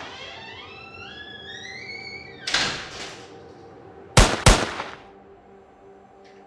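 Film sound effects: a stepped rising electronic tone, then a heavy clunk and a smaller one, then two sharp, loud metallic clacks close together, over a steady low hum.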